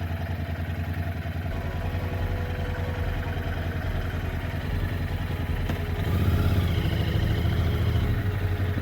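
Motorcycle engine idling steadily just after being started, growing a little louder about six seconds in.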